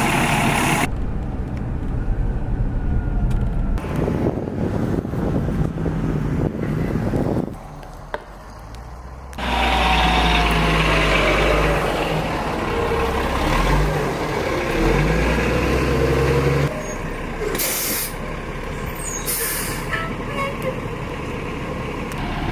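Fire engine with its diesel engine running in a steady low rumble, with short air-brake hisses near the end, heard across several abruptly cut clips.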